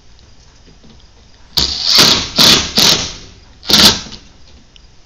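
Cordless drill driving a screw through a corrugated PVC roofing panel into the wooden purlin beneath, in four short bursts, the last after a brief pause.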